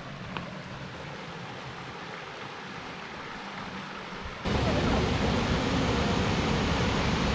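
Steady rush of waterfall water. About four and a half seconds in it cuts abruptly to a louder, closer rush.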